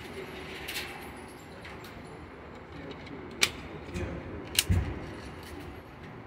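Sharp metallic clicks, two of them loud and about a second apart, the second followed by a low knock, with fainter clicks around them.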